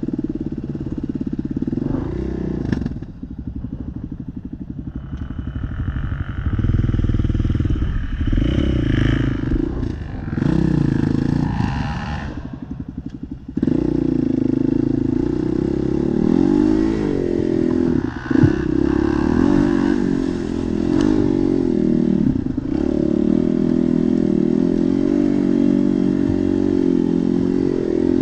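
Quad ATV engine running under load in mud, revving up and down. It eases off for a moment a little before halfway, then comes back louder. One sharp knock sounds a little past the middle.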